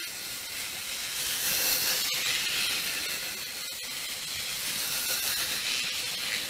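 Steady high-pitched hiss, with a couple of faint clicks.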